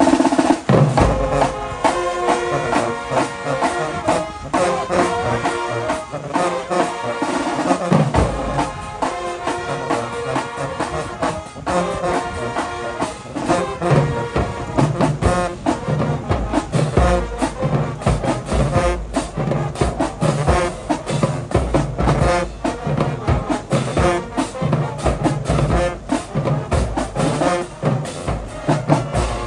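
High school marching band playing: brass horns carrying a tune over a steady drum beat, starting suddenly and loudly.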